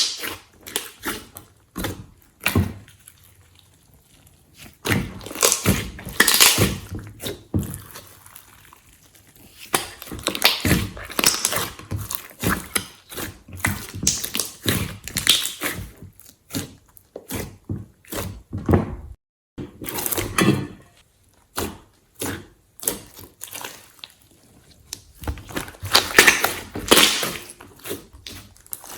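Glossy slime being squeezed and kneaded by hand, with irregular bursts of sticky clicks and pops from trapped air.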